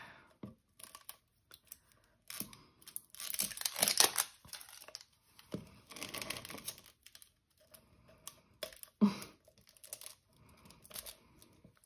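Thin clear plastic wrapping film crinkling and tearing as it is peeled off a small clear plastic Cricut blade holder, loudest a few seconds in, followed by scattered light clicks and taps of the hard plastic holder being turned and fitted together.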